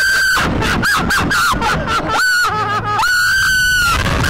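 Two riders on a bungee slingshot ride screaming. It is a string of high-pitched screams, the longest held for about a second, with two voices overlapping around the middle.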